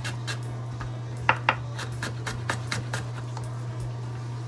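Chef's knife chopping ginger root on a wooden cutting board: irregular knocks of the blade striking the board, over a steady low hum.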